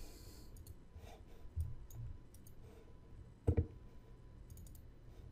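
Computer mouse clicks, scattered and light, with one louder dull thump about three and a half seconds in.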